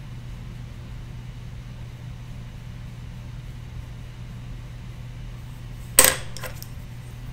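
Steady low room hum, then about six seconds in a sharp click followed by two or three lighter clicks, as makeup tools are handled on the desk.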